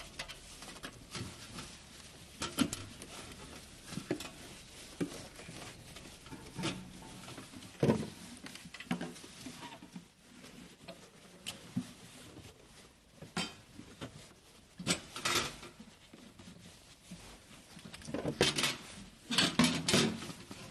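Irregular small clicks, taps and knocks of hands handling and fitting a small oil pump and its wiring on a metal frame, with louder clusters of knocks about three-quarters of the way through and near the end.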